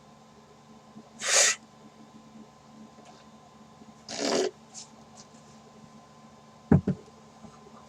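Two short breathy vocal sounds from a person, about three seconds apart, then a quick pair of low knocks near the end.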